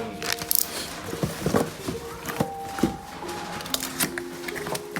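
Soft background music of held notes, with scattered clicks and rustles of a box and its packaging being handled.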